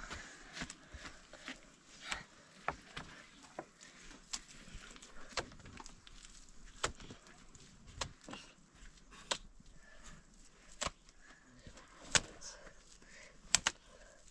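A series of sharp knocks and taps at irregular intervals, about one a second, with the loudest near the end.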